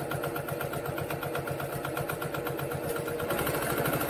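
Electric sewing machine stitching steadily at an even, rapid rate, sewing the open end of a rice-and-lentil-filled muslin pouch closed.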